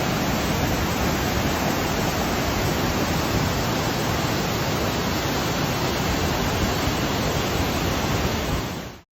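Steady, even rushing noise with no separate events, of the kind made by falling water or wind.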